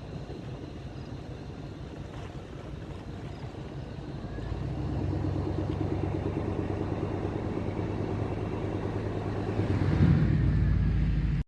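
A motor vehicle's engine running, growing louder from about four seconds in and loudest near the end, then cut off abruptly.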